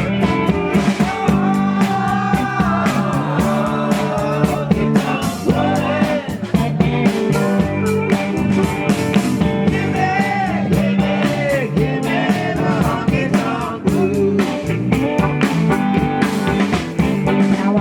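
Country-rock band music with guitar and drums playing an instrumental passage between sung verses.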